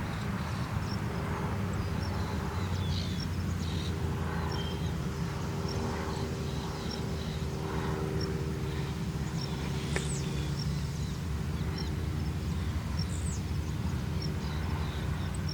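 Cessna 152's four-cylinder Lycoming engine and propeller droning steadily, with no rise or fall in pitch or loudness.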